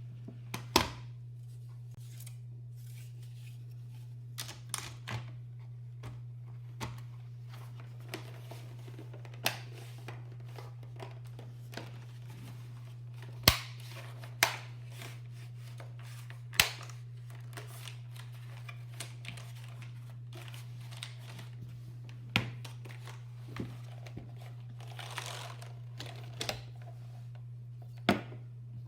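Scattered clicks and knocks from a mechanical keyboard's plastic parts being handled and fitted together, a few of them sharp and loud, over a steady low hum.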